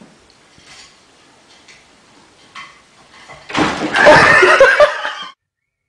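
Sudden loud commotion about three and a half seconds in as a cat falls from the back of a wooden chair onto a tiled floor, followed by loud human laughter that cuts off abruptly. A few faint taps come before it.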